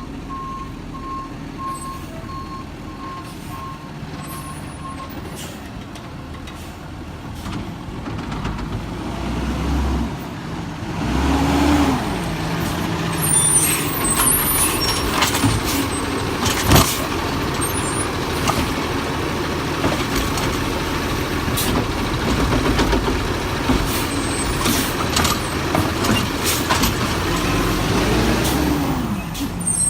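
Peterbilt 320 garbage truck: its reversing alarm beeps steadily for the first few seconds. About eleven seconds in the engine revs up and stays loud, with its pitch rising and falling again near the end, and there is a single sharp crack about seventeen seconds in.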